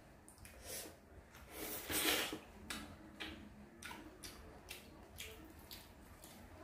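Wet, irregular smacking and squelching as boiled suckermouth armored catfish is pulled apart by hand and chewed, loudest about two seconds in.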